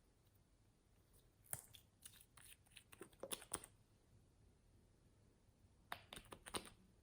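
Slime being handled and squeezed, giving short sticky crackles and pops in two bursts: a string of them from about a second and a half in, then a shorter group near the end.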